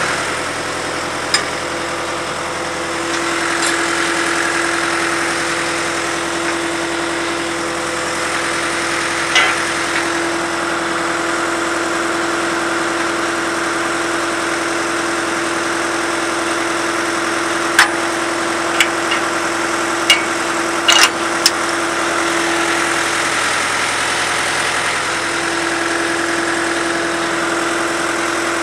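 Engine of a Buckeye 22W cable-tool drill rig running steadily at idle, with a few sharp clicks, most of them bunched together a little past the middle.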